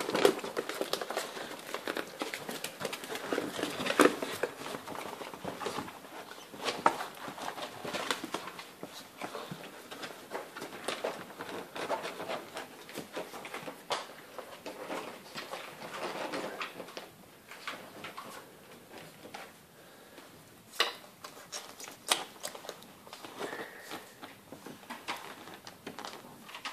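Great Dane puppies and their mother moving about on bedding and a parquet floor: irregular claw taps, scuffs, patters and rustling, busy at first and thinning out over the second half.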